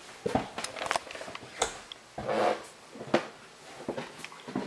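Footsteps climbing wooden stairs: a string of irregular knocks and thuds, roughly every half second.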